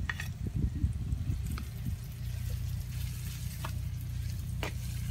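Sliced shallots and freshly added ground chilli-coriander masala paste sizzling in sesame oil in a pan, with a slotted metal spatula scraping and knocking against the pan as the paste is stirred in during the first couple of seconds. A steady low hum runs underneath.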